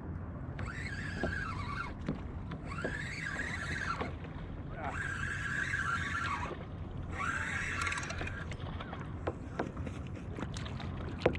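Fishing reel whirring in four bursts of about a second and a half each, the pitch rising then falling in each, while a hooked fish is played on a slow-jig rod. A few light clicks and knocks follow near the end.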